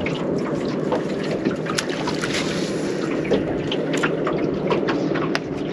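Steady wind noise on the microphone, with water lapping and slapping against the hull of a small fishing boat in many short light hits.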